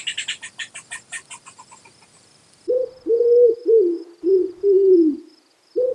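Squirrel chattering, a rapid run of high, sharp chirps at about eight a second that fades out over the first two seconds or so. Then, from near the middle, a pigeon cooing: a series of low, drawn-out notes, each dropping in pitch at its end.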